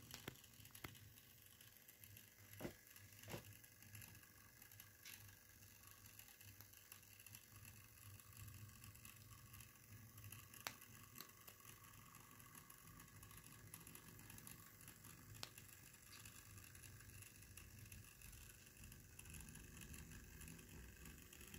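Near silence: a faint steady low hum with a few faint clicks scattered through it.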